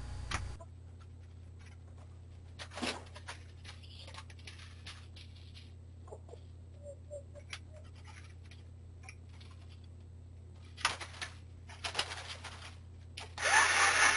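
Faint scattered rustling, scraping and light knocks over a steady low hum, typical of roosting chickens shifting inside a coop. A clutch of louder rustles comes about 11 to 12.5 seconds in. Near the end a loud steady hiss starts abruptly.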